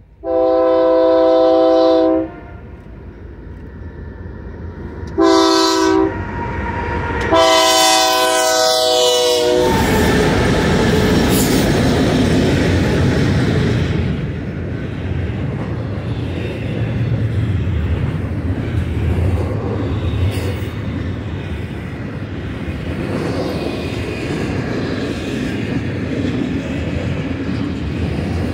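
BNSF ES44AC diesel locomotive's air horn sounding a long chord, a short one and another long one that drops in pitch as the lead units pass. The double-stack container well cars then roll by with steady wheel-on-rail rumble and clatter.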